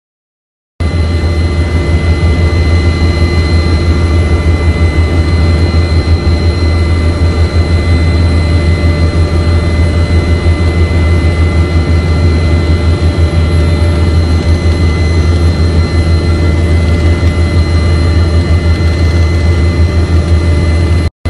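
Aircraft engine noise heard from on board: a loud, steady low drone with a constant high whine over it. It starts suddenly about a second in and cuts off just before the end.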